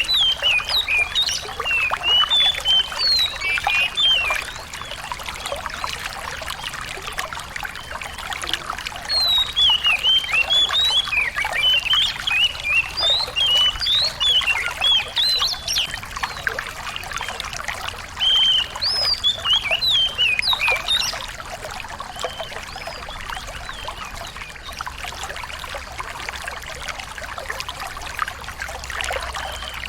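A small songbird singing in bursts of rapid, high chirps and whistles, with quieter gaps between, over a steady trickle of running water.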